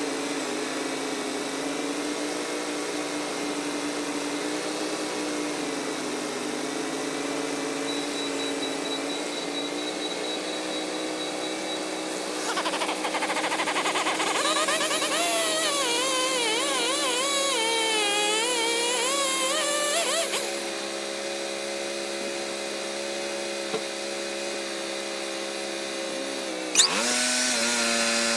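Wood-Mizer LT40 Hydraulic portable sawmill running steadily, with a louder, wavering whine for several seconds in the middle. A sharp click comes near the end, and the machine runs louder again as its pitch shifts.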